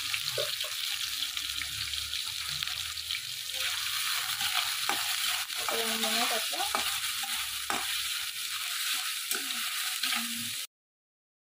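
Soaked soya chunks (meal maker) sizzling in a little oil in a steel kadai while being stirred, with a steady hiss and a few sharp clicks of the spoon against the pan. The sound cuts off abruptly near the end.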